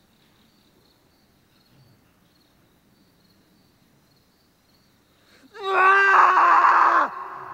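Faint crickets chirping, then about five and a half seconds in a person lets out one long scream at a steady pitch. It breaks off after about a second and a half and echoes away.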